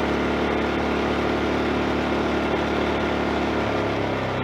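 Champion 2000-watt inverter generator's small single-cylinder four-stroke engine running at a steady speed, just after starting on a newly replaced recoil starter rope.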